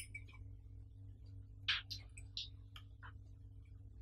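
Light clicks and taps of a Samson SP01 metal spider shock mount being handled and turned in the hands. There are a handful of scattered clicks, the loudest just under two seconds in, over a steady low hum.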